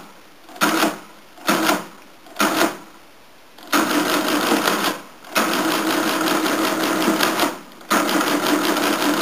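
Friden SW10 electro-mechanical calculator (c. 1952) with its motor-driven carriage shifting under the carriage control keys: three short clattering shifts about a second apart, then three longer runs of fast, even rattling as the carriage travels along. The mechanism runs slightly slow because the electric motor's centrifugal governor has been turned down to ease stress on the mechanism.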